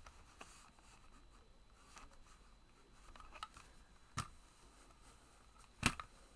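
Quiet room with a few light, sharp clicks and taps, the loudest about six seconds in.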